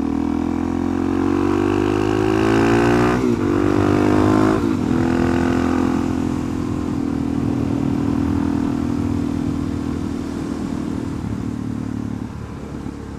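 Suzuki DR-Z400SM's single-cylinder four-stroke engine accelerating under way. The revs climb and drop sharply with upshifts about three and four and a half seconds in, then hold steady at cruising speed and ease off near the end.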